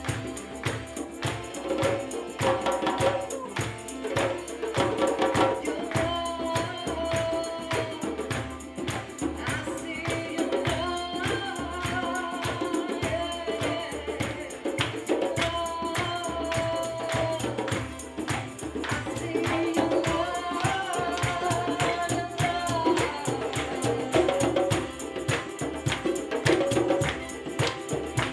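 Live acoustic music: hand drums and a tambourine keep a fast, busy rhythm under a violin playing a wavering melody.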